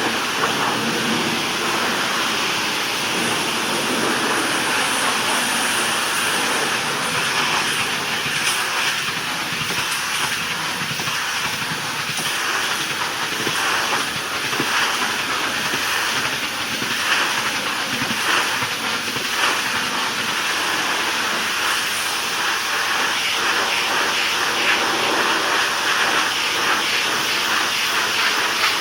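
Pressure washer spraying water onto a wooden deck: a steady hiss of spray with uneven spattering.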